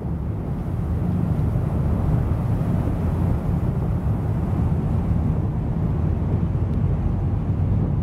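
Ship under way at speed: a steady low rumble with the churning rush of its wake.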